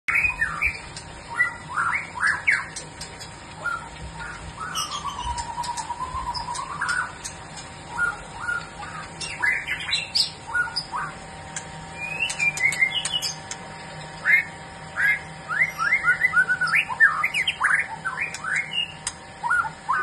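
Caged songbirds singing: quick runs of short whistled notes that sweep up and down, with one long dipping whistle about five seconds in.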